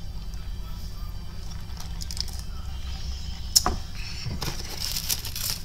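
Handling noises close to the microphone as a drink cup and food packaging are moved: one sharp knock a little past halfway, then about a second of crinkly rustling, over a steady low hum.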